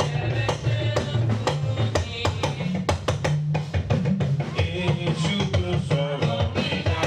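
Band music with a drum kit keeping a steady beat over a moving bass line and melody.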